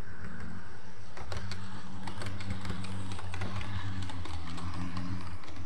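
00 gauge model trains running on the layout's track: a low steady hum with rapid, irregular clicking as the wheels run over rail joints and pointwork.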